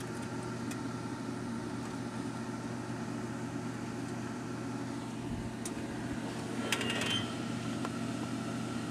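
Convection oven fan running with a steady hum, heard through the open oven door. A few light clicks, and a short clinking cluster about seven seconds in.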